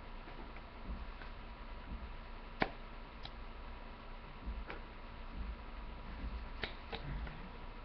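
Scattered sharp clicks and soft low knocks, the loudest click about two and a half seconds in, over a faint steady high whine and hum.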